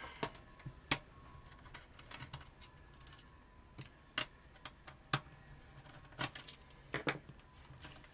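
Irregular light clicks and knocks from handling small metal parts: a screwdriver and screws set down, and the hard-drive cage of a mini PC's metal case worked loose and lifted out.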